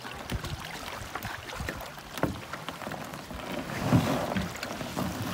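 Small waves lapping at the shore around a beached canoe, with wind, and a few sharp knocks and rustles as a pack is handled in the canoe.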